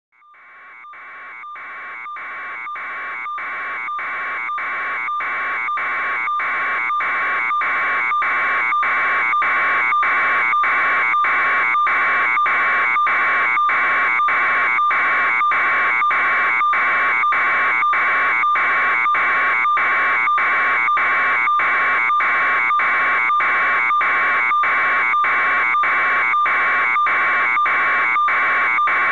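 Loud, harsh electronic beeping tone like an alarm buzzer, pulsing about twice a second without a break, fading up over the first several seconds and then holding steady.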